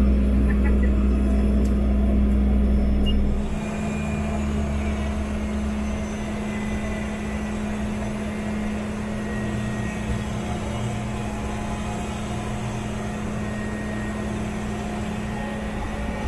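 Cessna Caravan's single Pratt & Whitney PT6A turboprop and propeller running, heard inside the cabin as a steady hum. The deep rumble eases about three and a half seconds in, then the sound holds even.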